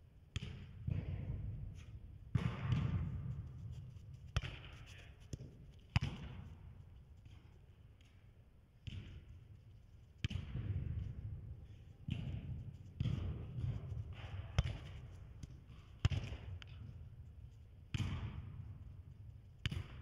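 A football (soccer ball) kicked back and forth in one-touch passes and controlled on first touch. Each kick is a sharp thud, about one every one to two seconds, ringing on in the echo of a large indoor hall.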